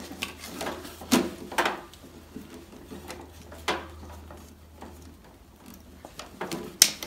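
Scattered knocks and clanks of metal gear being handled while a welder is set up, over a low steady hum that stops about five seconds in.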